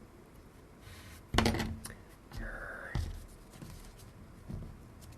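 Small tools and parts being handled on a workbench: a sharp clack about a second and a half in, a short squeak, then a few lighter knocks.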